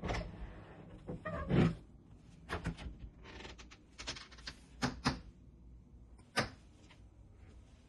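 A series of short knocks, clicks and clatters at irregular intervals, about six or seven in all, from things being handled and set down, as when food is being got out and a sandwich made.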